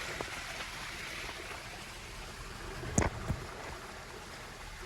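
Small waterfall or stream running over rocks: a steady rush of water, with a sharp knock about three seconds in and a fainter one just after it.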